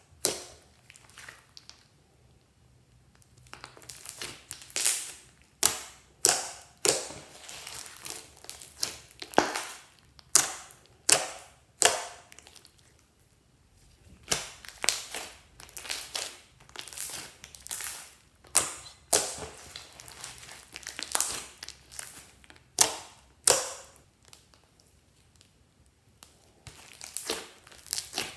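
Glossy slime being kneaded, squeezed and stretched by hand, giving a run of sharp, wet pops and clicks about one or two a second. There are short lulls about two seconds in and near the middle.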